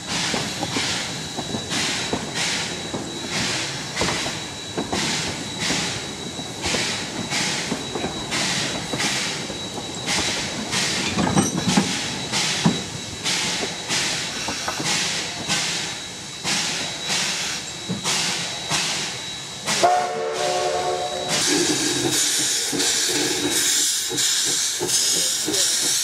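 Steam-hauled narrow-gauge train passing close, its coaches rolling by with a steady beat about twice a second. About 20 seconds in there is a short steam whistle blast, then steady steam hissing from the 4-6-0 steam locomotive.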